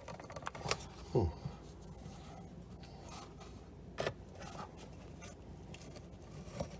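Pliers working metal retaining clips loose from a plastic Corvette center console vent: faint, scattered small clicks and scrapes, with a sharper click about four seconds in.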